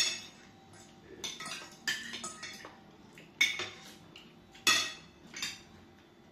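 Metal fork and spoon clinking and scraping against glass dinner plates, about half a dozen sharp, separate clinks.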